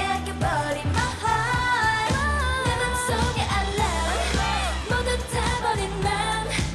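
K-pop dance song: a girl group's vocals singing over a hip-hop beat with a deep bass line.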